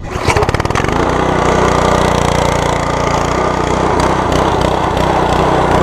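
The Simpson MSH3125 gas pressure washer's small engine starts up, quickly picking up speed within the first second. It then runs steadily.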